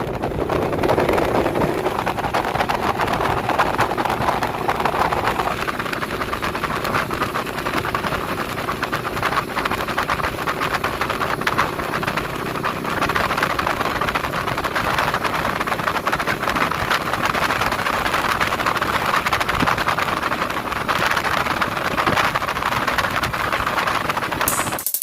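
Car on the move: steady engine and road noise with no sudden changes.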